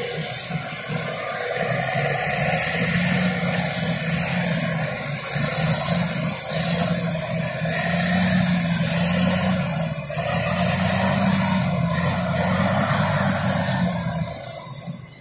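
Heavy diesel engine of a Komatsu hydraulic excavator running hard, its note rising and falling as it works. It eases off sharply near the end.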